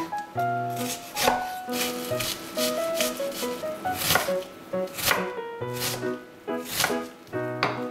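Chef's knife dicing an onion on a bamboo cutting board: sharp, irregularly spaced knocks of the blade striking the wood. Background music with a light melody plays underneath.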